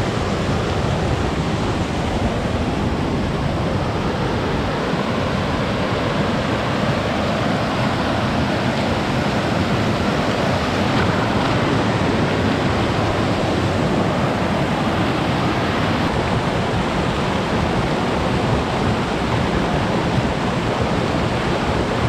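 Rushing water of a mountain creek with small waterfalls, a steady loud rush.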